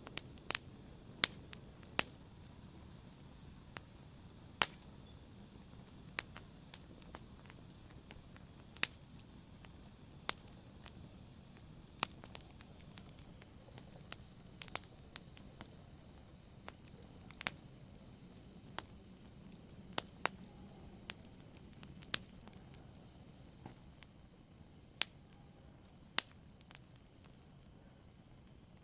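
Wood logs burning in a fireplace: sharp, irregular crackles and pops over a low steady rumble of flame.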